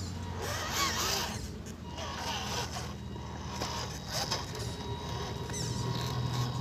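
Homemade PVC RC truck's geared motor drivetrain running steadily as the truck crawls over dirt and stones: a low hum that grows stronger near the end.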